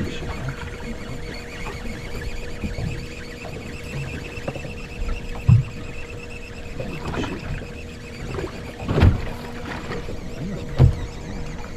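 Small fishing boat on the water: a steady hum with three low thumps against the hull, the loudest about five and a half seconds in.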